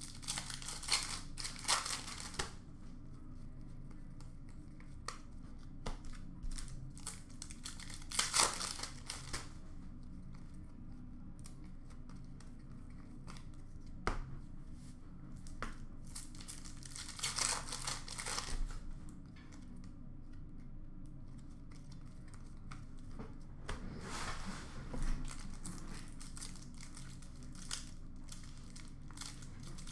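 Trading-card pack wrappers being torn open and crinkled in several short bursts, with quieter stretches of card handling between.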